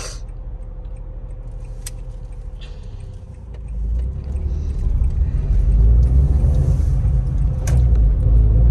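Car engine and road rumble heard from inside the cabin, rising about three and a half seconds in as the car pulls away and picks up speed. A few sharp clicks or rattles sound now and then.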